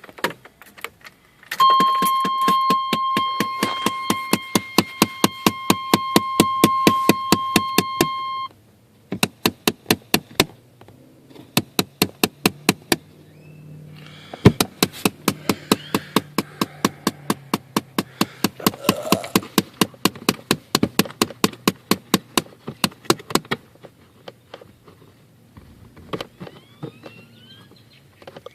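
Fast, regular thumping from a 1991 Chevy, about four to five knocks a second, stopping and starting again a few times. This is the car's thumping fault, which the owner traces to a visible part. A steady high tone sounds along with it for the first several seconds, then cuts off.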